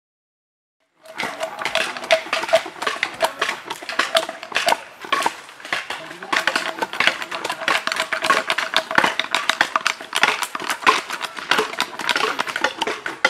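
Many overlapping, irregular knocks of hand tools chopping and carving wooden blocks, starting about a second in, with voices in the background.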